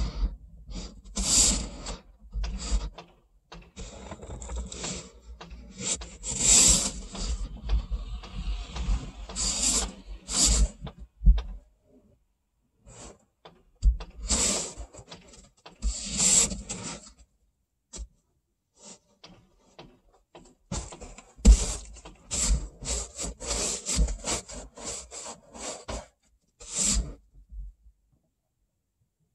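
Ice being scraped off a car's iced-over window glass: irregular runs of scraping strokes, with a couple of pauses in the middle and a last stroke near the end.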